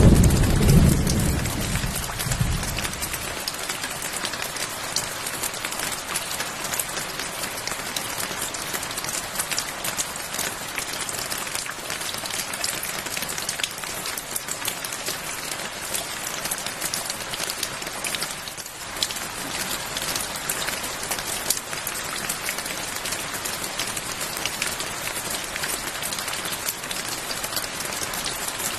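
Steady rain falling on surfaces, a dense patter of drops. A low thunder rumble fades away over the first few seconds.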